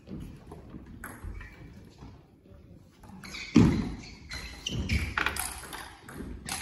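Table tennis ball pinging and bouncing between points, with a sudden loud thump about three and a half seconds in.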